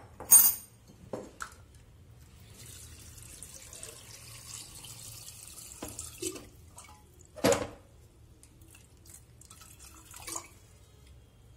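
Water pouring in a thin stream into an aluminium pressure cooker over soaked chickpeas, splashing and trickling. A sharp clink sounds right at the start and a knock about seven and a half seconds in.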